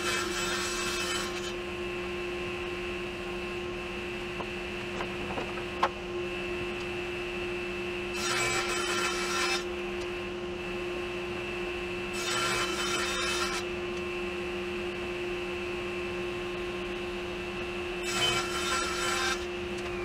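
Table saw running steadily while ripping half-inch plywood into trim strips. There are four louder cuts of about a second and a half each: one at the start, then about eight, twelve and eighteen seconds in.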